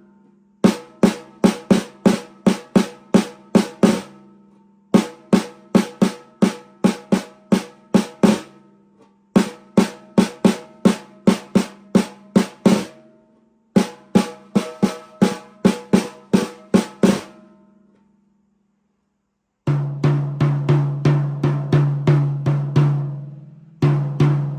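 Pearl Roadshow drum kit: one drum struck in runs of about eight even, ringing hits with short gaps between the runs. After a brief silence near the end, a deeper-pitched drum starts, struck a little faster.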